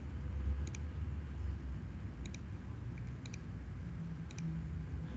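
Computer mouse clicking: four short double clicks, roughly a second apart, over a steady low background hum.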